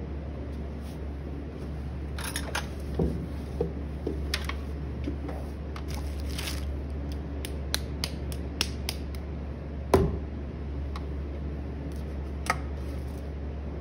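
Handling noises at a pottery wheel: scattered light clicks and knocks over a steady low hum, with one heavier thump about ten seconds in as a lump of clay is set down on the wheel's bat.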